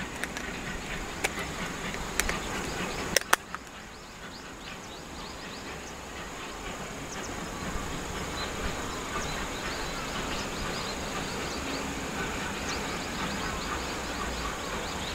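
Rural outdoor ambience: a steady high insect trill with many short scattered chirps, and a few sharp clicks in the first three seconds.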